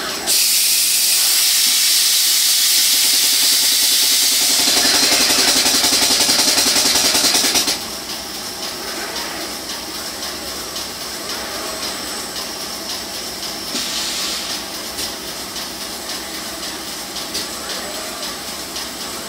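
Machinery in a robotic casting cutting-and-deburring cell: a loud hiss starts suddenly just after the start and cuts off abruptly about eight seconds in, with a fast rhythmic rasp in its second half. Lower, steady machine noise carries on after it.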